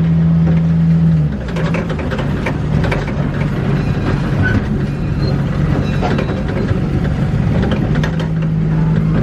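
Small park train running on its track: a steady engine hum, dropping away after about a second and returning near the end, under an irregular clatter and rattling of wheels and cars.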